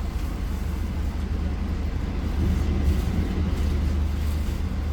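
Passenger train running, a steady low rumble with an even noise above it.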